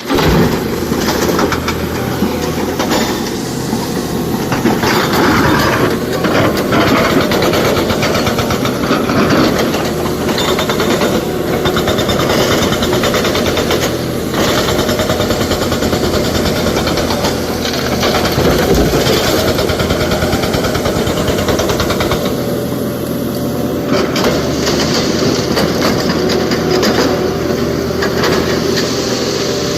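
A SANY excavator's diesel engine runs steadily under load as the machine works, with irregular knocks and clanks of rock and steel.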